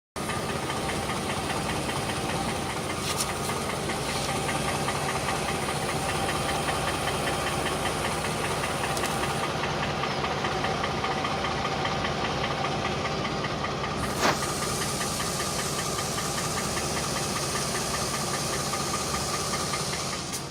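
V6 engine running with a fast, steady knocking. There is one sharp click about fourteen seconds in.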